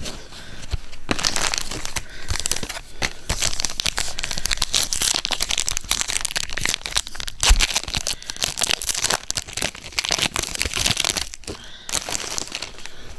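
Wrapper of a Donruss Optic trading card pack crinkling and tearing as it is ripped open and handled, a long run of irregular rustling from about a second in until near the end.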